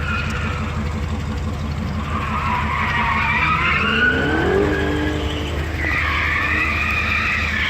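1957 Ford Thunderbird's V8 engine running steadily, with a high wavering squeal over it and a rising whine about four seconds in.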